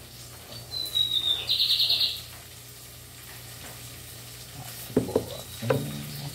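A bird calls about a second in: a short falling whistle, then a quick pulsed trill. Near the end come a few sharp knocks and a short low sound.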